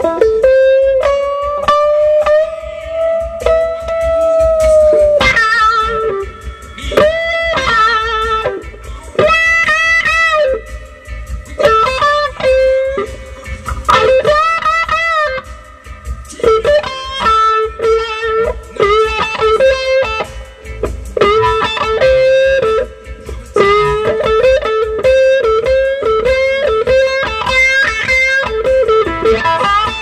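Electric guitar, a 1962 Stratocaster, played through a 1960 Fender Tweed Bassman tube amp freshly fitted with a new Mallory filter capacitor in place of a leaky Astron. It plays a single-note blues lead with string bends, vibrato and slides, including a long held bent note near the start.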